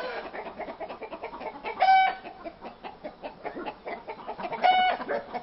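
Hens clucking, a steady patter of soft clucks with two short, louder pitched calls, about two seconds in and near the end.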